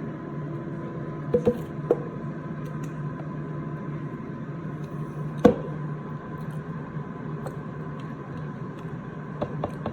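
Air fryer running with a steady fan hum. A few sharp clicks and knocks of kitchenware being handled sit over it, the loudest about five and a half seconds in.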